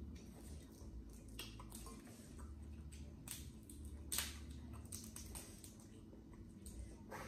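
Boiled crawfish shells cracking and snapping as they are peeled by hand: a scatter of irregular crunchy clicks, with one sharper crack about four seconds in.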